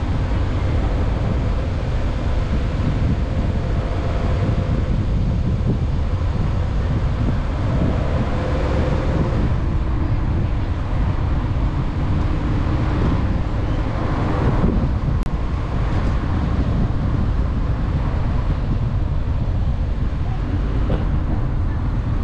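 Wind buffeting the microphone over the steady low road noise of a car driving.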